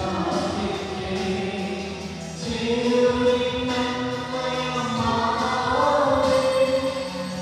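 A group of voices singing a hymn in chorus, with long held notes that move step by step.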